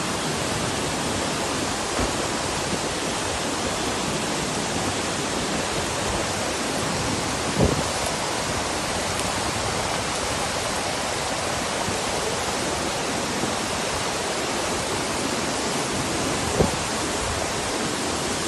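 Steady rushing noise of muddy flash-flood water cascading down a rock face, with a couple of brief knocks.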